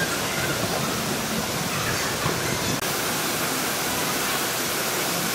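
Steady rushing of flowing and falling water in a water park lazy river, with water spilling from the rock walls into the channel.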